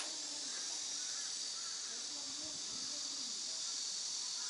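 Steady high-pitched insect chorus, with faint distant human voices underneath and a short click right at the start.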